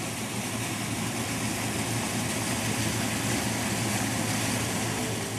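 Water rushing out of the outlet at the foot of a stone dam and churning into the stream below, a steady rushing noise with a low hum underneath.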